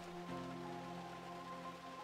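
Soft, slow background music of long held notes, a new chord coming in just after the start, over a faint hiss of rain.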